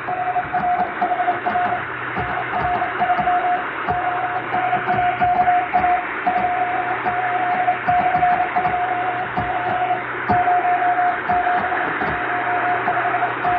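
Morse code (CW) telegraphy: a single mid-pitched tone keyed into dots and dashes, over a bed of shortwave-style hiss and crackling static with a low hum underneath. The noise and fading are added to imitate shortwave radio reception.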